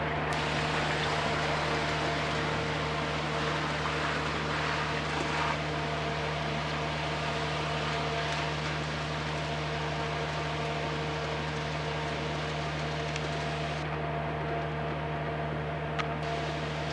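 Unattended construction-site machine running with a constant low hum and a broad hiss, a piece of equipment that switches itself on by itself. The upper hiss thins out for a couple of seconds near the end.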